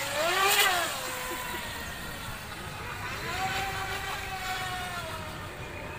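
Radio-controlled speedboat running fast across the water, its motor a high pitched tone that rises and falls as the boat passes about half a second in, then holds a steadier pitch for a couple of seconds later on, over the hiss of spray.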